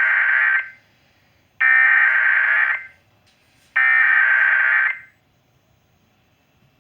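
Emergency Alert System SAME header: three bursts of digital data tone, each a little over a second long, about a second apart. This is the coded header that opens an EAS alert, here a severe thunderstorm warning, sent just before the two-tone attention signal.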